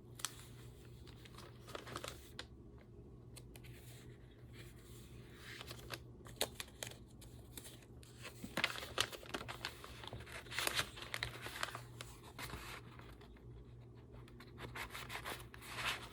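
Paper rustling and crinkling as a greeting card and journal pages are handled, in scattered short rustles that grow busier in the middle and again near the end, over a faint steady low hum.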